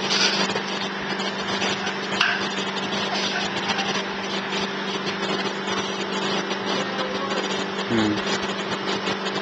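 A baby hiccuping once, a short 'hic' with a falling pitch about eight seconds in, over a steady loud mechanical hum and hiss.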